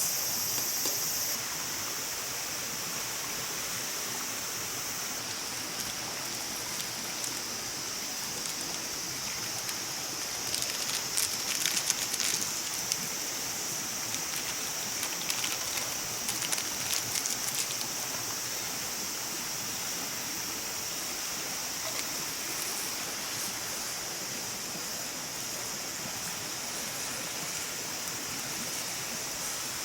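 Steady rushing, stream-like noise with a continuous high insect-like drone over it, and a run of sharp crackling clicks from about ten to eighteen seconds in.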